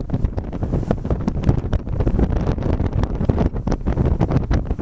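Loud wind buffeting the microphone: a heavy rumble broken by many irregular sharp crackles.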